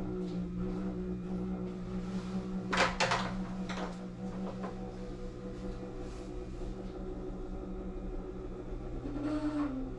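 A steady low hum made of several constant pitches, with a brief clatter about three seconds in.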